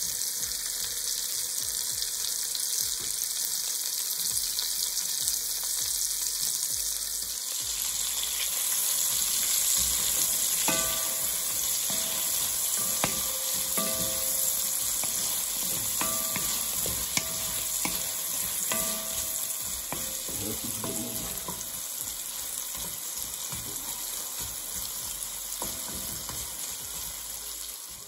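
Cut okra sizzling as it fries in sausage fat in an enamelled pot, stirred with a wooden spatula. From about ten seconds in, light clicks and scrapes of the spatula against the pot come through the steady sizzle.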